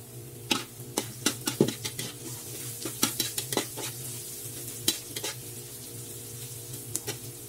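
A metal spatula scraping and clinking against a metal wok as it stirs chopped garlic and onion sizzling in hot oil, sautéing until golden brown. The clinks come thick and fast for the first five seconds, then only a few near the end, over a steady low hum.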